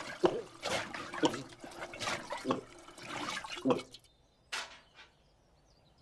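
Cartoon sound effect of water glugging down a funnel in rhythmic gulps, about two a second, stopping about four seconds in; one more short glug follows about half a second later.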